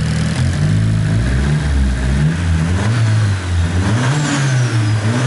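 Nissan SR20 four-cylinder engine fitted with 1000 cc fuel injectors, idling and then revved gently from about half a second in, its speed rising and falling several times. The injectors are loud.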